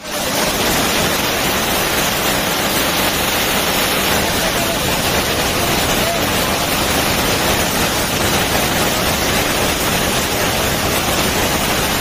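Waterfall: heavy water falling and splashing in a steady, loud rush.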